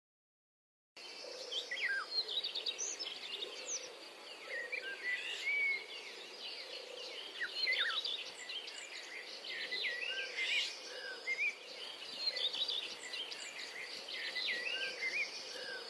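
Several birds singing and chirping together in a busy chorus of short calls and quick rising and falling notes, over steady outdoor background noise. It starts about a second in.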